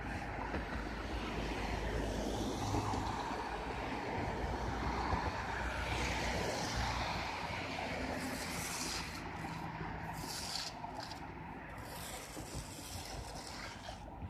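Road traffic: cars passing on the road, a steady rush of tyre and engine noise that is louder in the first half and eases off later.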